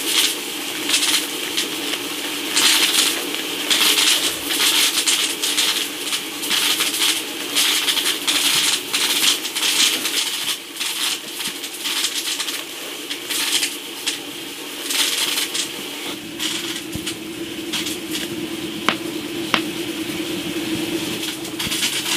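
Plastic sachets and packets crinkling as they are torn open and handled: a dense, continuous crackly rustle, with a steady low hum underneath and two sharp clicks near the end.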